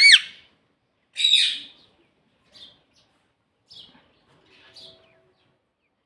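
Pet parrot calling: a loud wavering call ends just as it begins, a second loud call comes about a second in, then a few faint short chirps.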